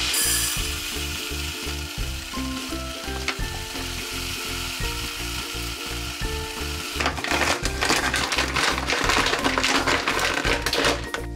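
A large paper rice bag rustling and crinkling as it is handled, loudest over the last few seconds as it is folded shut. Background music with a steady beat plays throughout.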